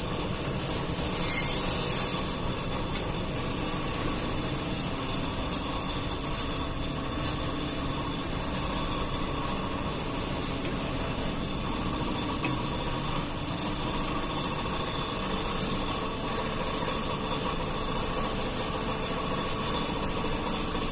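Waste-plastic recycling extruder machine running steadily, a continuous mechanical hum with several steady tones. About a second in there is a short, loud hiss.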